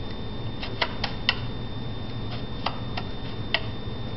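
Sharp plastic clicks from a handheld toy picture viewer being worked, about eight in all at uneven spacing, several in a quick run about a second in, over a steady low hum.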